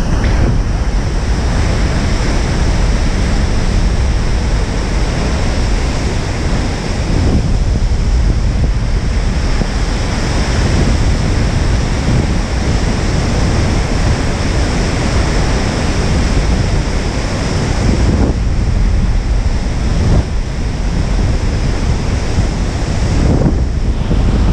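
Wind buffeting the microphone over the rush of breaking surf in heavy, storm-driven swell: a loud, steady noise with no pauses.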